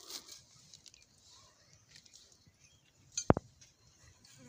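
Faint rustling of a plastic parts bag being handled, then a single short, sharp knock about three seconds in.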